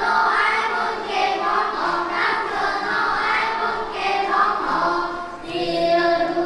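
A group of children singing together as a small choir, holding notes through a phrase, with a brief pause for breath about five seconds in.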